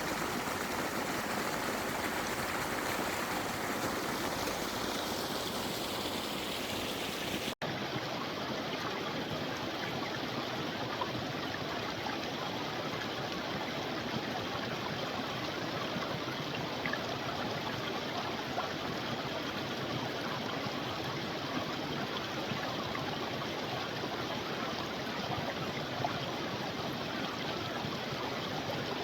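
Creek water running steadily. About seven and a half seconds in there is a brief cut, after which the sound goes on slightly duller.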